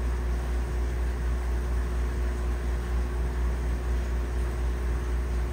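Aquarium equipment running with a steady low hum and an even hiss, as from an air pump driving the tank's air-lift filter.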